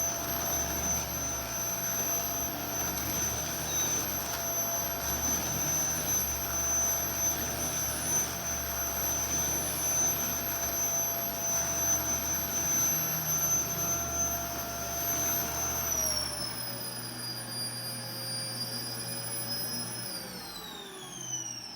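Vacuum cleaner motor running steadily, a high whine over a rushing air noise. About three-quarters of the way through, its pitch drops to a lower speed, and near the end the whine falls steeply as the motor winds down.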